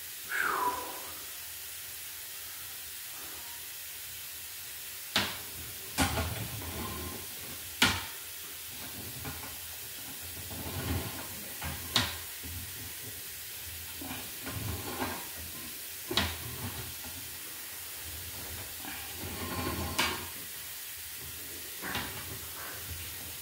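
A sewer inspection camera being pushed down a drain line, with water running through the pipe: a steady hiss broken every few seconds by sharp clicks and knocks, some with a dull thud.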